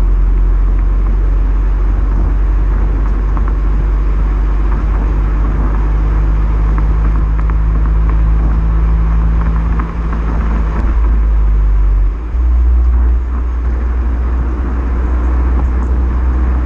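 Renault Mégane GT's 1.6 TCe turbocharged four-cylinder engine running through its stock exhaust in neutral drive mode, a steady low drone. Just after the middle there is a brief dip, and the low note then steps up in pitch and holds.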